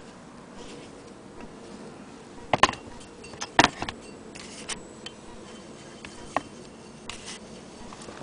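Cast-iron hand-crank wheel of a Willcox & Gibbs sewing machine turning by hand, with scattered sharp metallic clicks and rattles. The loudest come about two and a half and three and a half seconds in.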